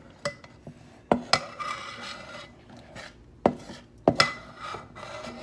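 Metal spoon scraping and clinking against a stainless steel mixing bowl, scooping the last of the cupcake batter from near the bottom of the bowl. Several sharp clinks with short ringing stand out: about a second in, and twice more after three seconds.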